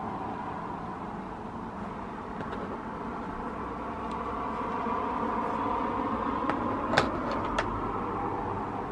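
Steady running noise of a car heard from inside, an even hum and rumble. A few sharp clicks come near the end, the loudest a little past halfway.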